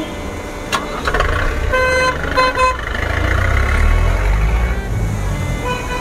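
A vehicle horn sounds three short toots about two seconds in, followed by a passing vehicle's engine rumble that swells and fades.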